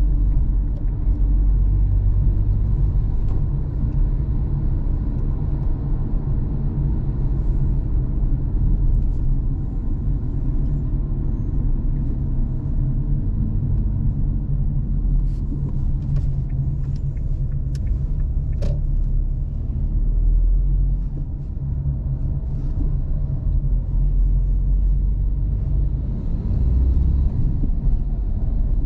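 A car's engine and tyre noise heard from inside the cabin while driving: a steady low rumble, with a few faint clicks a little past halfway.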